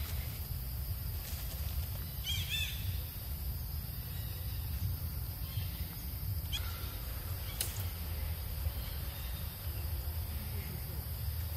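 Outdoor ambience with a steady low rumble and a constant high whine, broken about two seconds in by a quick run of short, high, rising-and-falling animal calls, with a single chirp and a sharp click a few seconds later.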